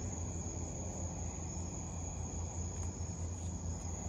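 Crickets chirping steadily at night, a continuous high-pitched drone, over a low steady rumble.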